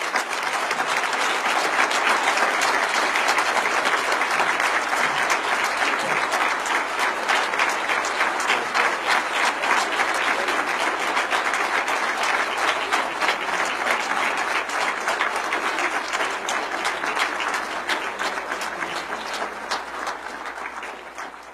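Large audience applauding, a dense, steady clapping that dies away near the end.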